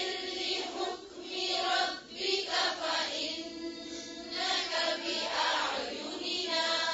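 A group of voices chanting a Quran verse together in unison, with blurred, overlapping pitches and fainter than the lead reciter. It is the class repeating the verse after the tajweed teacher.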